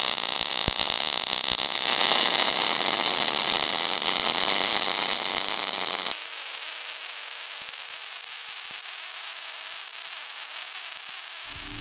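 MIG welding arc running with a steady crackling hiss. About six seconds in the sound changes suddenly, becoming quieter and thinner as the shielding gas runs out and the wire keeps arcing without gas.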